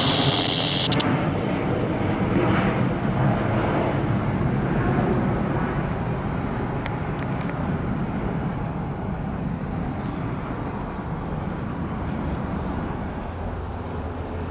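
Jet airliner passing overhead and flying away, its twin engines making a steady rumble that slowly fades.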